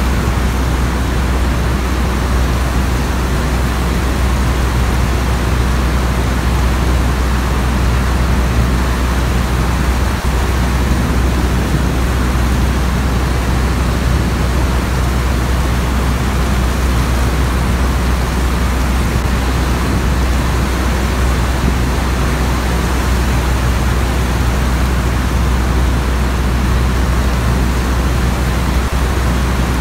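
Steady low drone of a WWI SPAD biplane's engine in flight, with an even hiss of rain over it, unchanging throughout.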